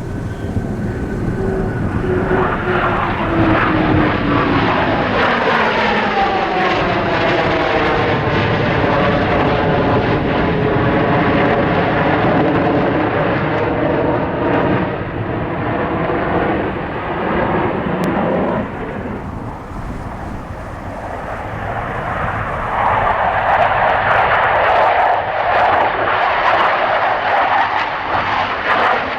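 Airplane flying past, its engine tone dropping in pitch as it goes by, with a sweeping, phasing rush through the middle. The noise fades briefly, then another loud pass of engine noise comes in about two-thirds of the way through.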